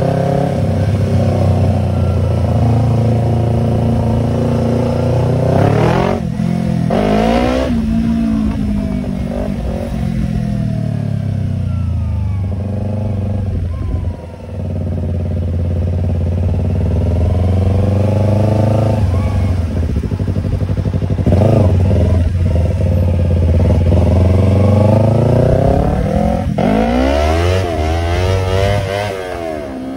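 Yamaha YZF-R25's parallel-twin engine running through an aftermarket Tiger exhaust while riding. The revs climb and drop several times as it accelerates and eases off, with a sharp drop about fourteen seconds in.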